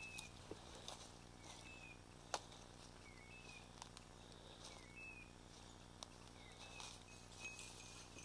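A faint electronic chirp, the same each time, repeating evenly about every second and a half, typical of a pointing dog's beeper collar in the cover. Scattered faint clicks and snaps sound underneath, one sharper about two seconds in.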